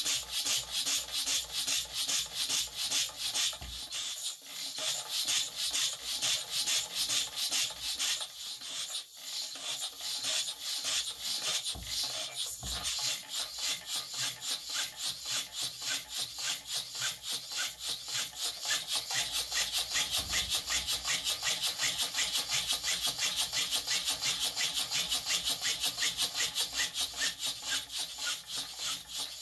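Homemade three-cylinder triple-expansion steam engine running, its exhaust hissing in quick, even puffs about five times a second. The puffs falter briefly a few times in the first half, then settle into a steady, stronger beat.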